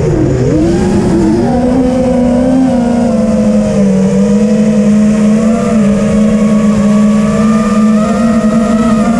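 TBS Vendetta racing quadcopter's brushless motors and propellers whining in flight. The pitch drops sharply just after the start as the throttle comes off, climbs back within about a second and a half, then holds fairly steady with small wavers.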